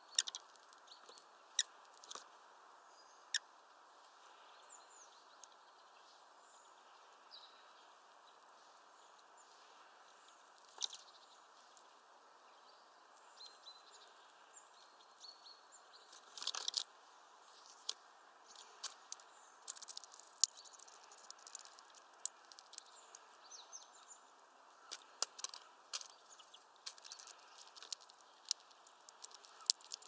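Grey-headed woodpecker pecking at a fat ball on a feeder: a run of sharp, irregular taps, thickest in the second half. Faint short chirps of small birds come through, mostly in the first half.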